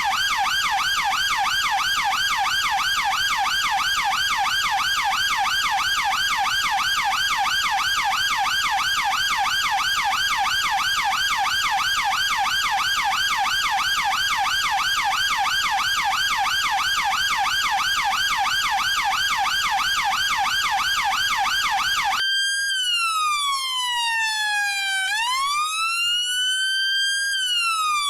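British police car siren on the rapid yelp setting, warbling several times a second. About 22 seconds in it switches abruptly to the slow wail, falling and rising over a few seconds per sweep.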